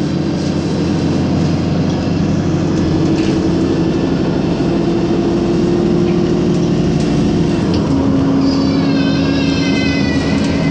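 Isuzu Citibus engine and drivetrain running steadily under way, heard from inside the passenger cabin, its hum dropping in pitch about three-quarters of the way through. Near the end a high wavering squeal sounds for about two seconds.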